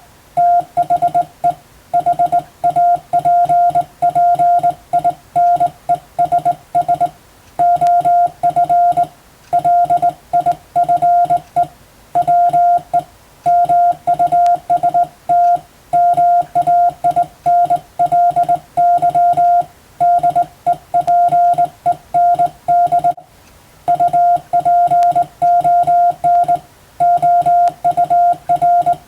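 Morse code practice signal: a single steady beep keyed on and off in a continuous run of short dots and longer dashes, with brief gaps between characters and words.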